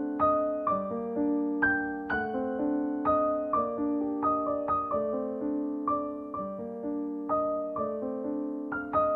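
Background piano music: an unhurried run of struck notes, about two a second, each ringing and fading over held lower notes.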